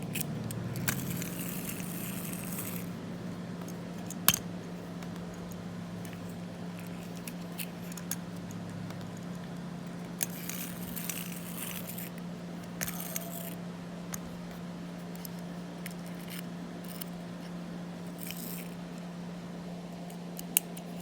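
A tin wind-up toy VW bus being handled: scattered light metallic clicks and a few brief rustles, the sharpest click about four seconds in, over a steady low hum.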